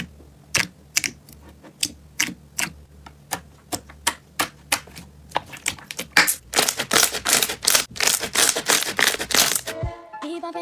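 Slime being squeezed and poked, giving sharp clicks and pops, a few a second at first and coming thick and fast from about halfway.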